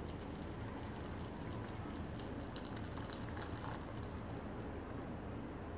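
Hot water pouring in a steady stream from a kettle into a stainless-steel pot of yellow noodles.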